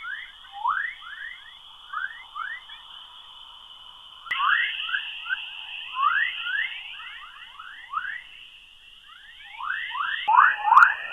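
Spacecraft plasma-wave radio emissions converted to audio: a dense run of short rising whistling chirps, several a second, over a steady high hiss. The sound shifts abruptly about four seconds in and again near the end.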